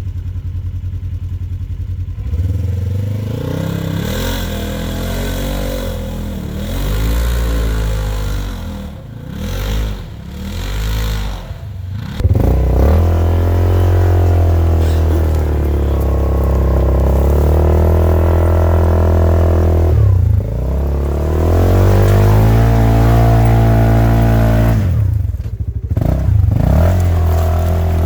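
Polaris RZR side-by-side's engine pulling along a trail, the revs rising and falling unevenly for the first dozen seconds, then holding a steadier, louder drone with two brief let-offs.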